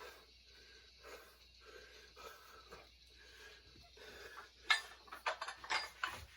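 A weightlifter breathing hard in quick, even breaths, about two a second. Near the end comes a run of louder, sharp puffs and clicks.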